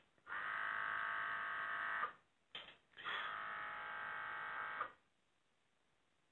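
The rain gauge calibrator's small electric water pump buzzing steadily in two runs of about two seconds each as it fills the tipping bucket at the fast-fill rate, with a single short click between the runs as the tipping bucket tips.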